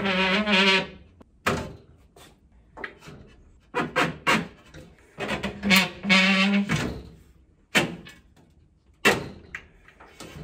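A glass shelf and grow-light fittings being forced into a tight slot in a glass-and-metal cabinet, making a horrible squeal twice: briefly at the start, then for about a second and a half midway. Sharp knocks and clunks come in between as the parts are pushed into place.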